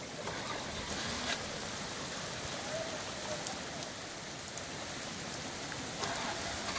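Steady rain falling, with floodwater running over the road.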